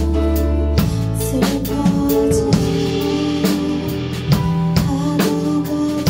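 Live band playing a song: a steady drum-kit beat under bass and electric guitar, with a woman singing.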